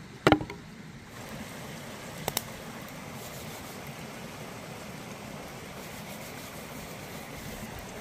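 Steady rushing of a small rocky stream. A loud sharp knock comes near the start, and two quick clicks follow about two seconds in.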